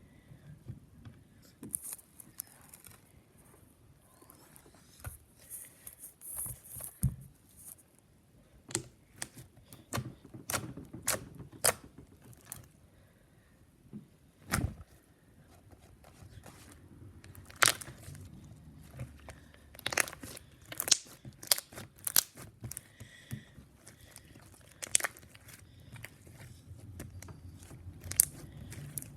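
Fluffy slime being squished and stretched by hand: irregular sticky crackles and sharp pops, a few of them louder snaps.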